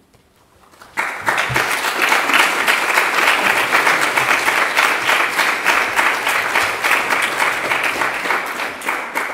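Audience applauding: many hands clapping, starting abruptly about a second in, holding steady, then thinning out near the end.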